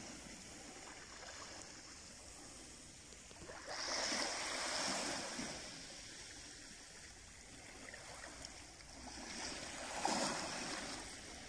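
Small waves washing up on a beach, a steady wash with two louder surges that swell and fade about six seconds apart.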